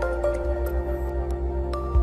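Electronic background music: sustained synth notes over a steady bass line, with a short percussive hit near the end.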